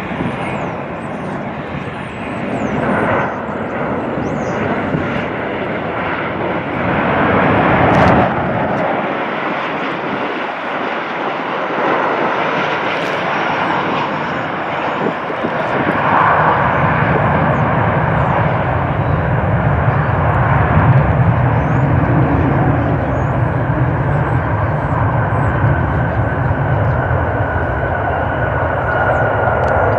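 Jet airliner engines of an arriving Boeing 737 on approach: a continuous roar that grows deeper and louder about halfway through, with a steady high whine over it. A sharp click about eight seconds in.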